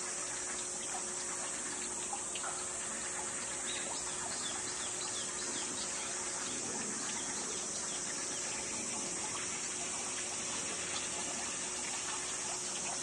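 Steady outdoor ambience: a constant high hiss over a faint low hum, with a run of short high chirps a few seconds in.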